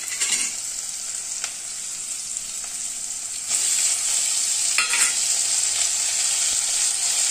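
Onion, garlic and ginger sizzling in hot oil in an iron kadai. The sizzle grows louder about three and a half seconds in, as chopped tomatoes are tipped into the pan.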